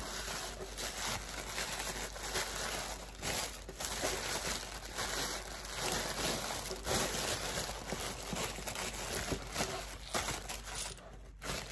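Brown kraft paper and tissue paper packing crinkling and rustling as hands unwrap a packaged item, in dense irregular crackles with a short lull near the end.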